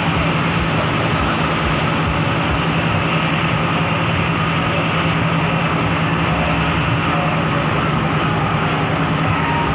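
Bus engine running steadily, a constant low hum under an even mechanical noise.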